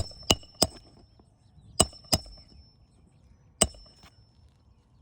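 Hammer driving roofing nails into an asphalt shingle: six sharp strikes with a brief metallic ring. Three come in quick succession at the start, two more about two seconds in, and a last one a little later.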